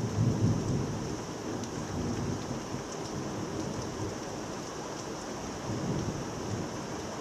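Thunderstorm: steady rain with low rolling thunder, loudest just after the start and swelling again near the end.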